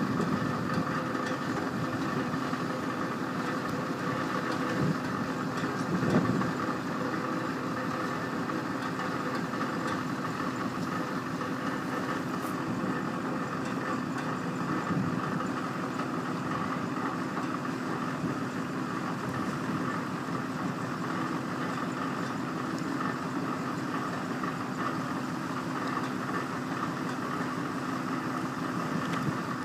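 Heavy truck engine idling steadily while an end-dump trailer's steel box is lowered, with a couple of short clunks about five and six seconds in.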